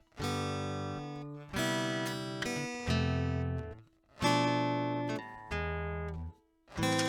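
Slow acoustic guitar music: a series of about six chords, each struck and left to ring and fade, with short pauses between phrases.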